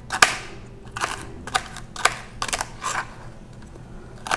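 Kitchen knife slicing celery stalks on a plastic cutting board: irregular crisp cuts, about two or three a second, each knife stroke knocking on the board.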